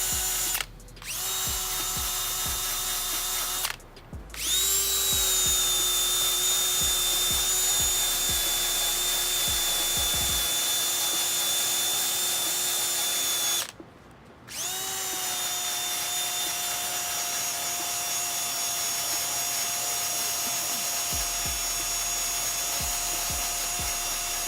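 Power tool spinning a wire wheel against car body steel, a steady whine as it scrubs a small rust spot down to bare metal. It stops briefly three times and spins back up each time; the longest run lasts about ten seconds.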